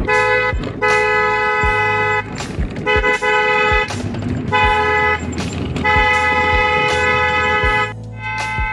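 Pair of Roots windtone electric horns on a Bajaj Chetak scooter, sounding a loud two-note chord in five blasts: a short toot, then longer ones, the last held about two seconds. A steady low engine hum runs underneath.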